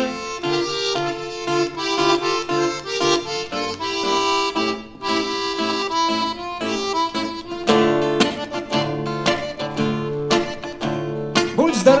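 Instrumental introduction played on an accordion and an acoustic guitar: the accordion carries the melody in held notes over guitar chords. From about eight seconds in the strummed guitar chords come through more strongly, and a man's singing voice comes in right at the end.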